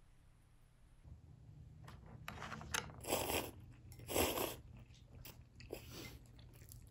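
Soba noodles being slurped from a bowl: a few short slurps, the two loudest about a second apart in the middle.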